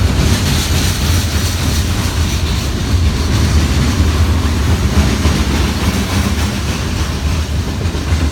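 Freight train's cars rolling past: a steady, loud rumble of steel wheels on the rails.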